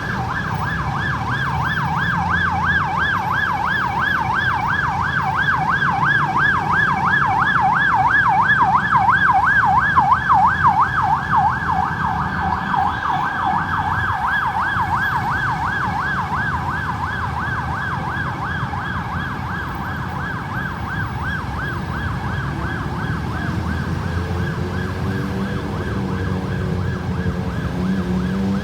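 Ambulance siren in a fast yelp, rising and falling several times a second. It grows louder to a peak about ten seconds in, then slowly fades as the vehicle passes, over a low rumble of road traffic. Near the end a second, lower sweeping siren tone comes in.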